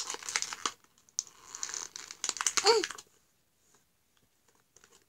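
Plastic toy packaging crinkling and clicking as small fingers pick and pull at it to free the toys inside, in bursts through the first three seconds, then nearly quiet.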